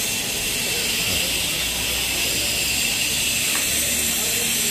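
Steady hiss of background noise, without distinct events.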